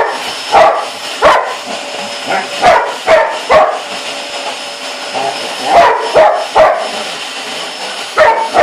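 A dog barking repeatedly in short bunches of two or three barks at a running vacuum cleaner, whose steady motor hum and whine carry on underneath.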